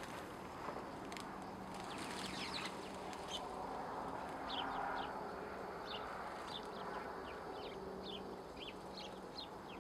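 Small birds chirping in the branches: short, high calls that drop in pitch, repeated about twice a second from about halfway on.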